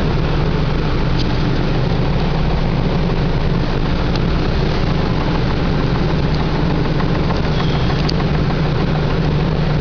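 A machine running with a steady low hum and a few faint ticks.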